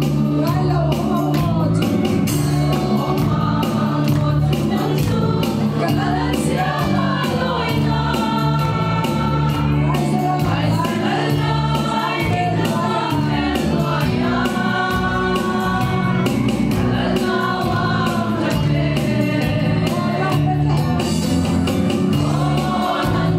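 Women's choir singing a Christian song together, one voice amplified through a microphone, over steady low accompanying notes.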